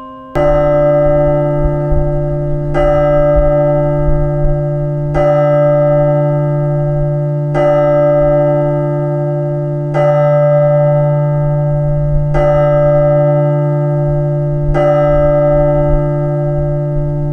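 A deep clock bell striking seven times, evenly about two and a half seconds apart. Each stroke rings on into the next over a steady low hum.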